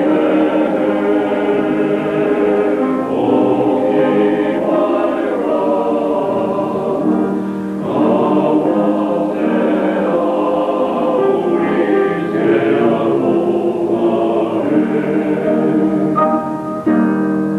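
Welsh male voice choir singing in long, sustained phrases, accompanied on an electronic organ.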